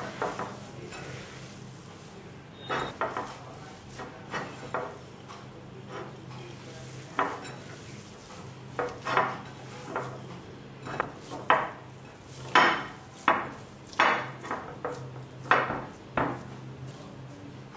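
Bare hands mixing and kneading a moist mixture of soaked bread, minced raw chicken and breadcrumbs in a ceramic bowl. It comes as irregular wet strokes with light knocks against the bowl, busiest in the second half.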